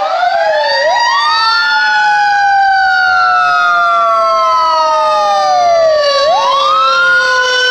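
Fire engine sirens wailing as it responds. One siren rises sharply, slowly falls, and rises again about five seconds later, over a second siren tone that keeps falling slowly.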